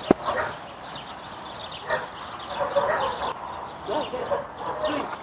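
A Pembroke Welsh Corgi giving a series of short, excited yips and whines. A sharp click comes just at the start, and faint high chirps run underneath.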